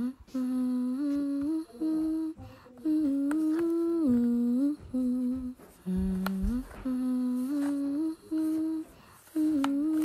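A woman humming a tune with her lips closed, in short held notes that step up and down, phrase after phrase with brief pauses between. A few light clicks come from a cardboard box being handled.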